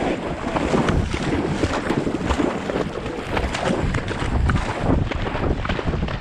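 Wind buffeting and rubbing, bumping handling noise from a GoPro mounted in a harness on a moving Labrador retriever's back, with a steady low rumble and many small knocks.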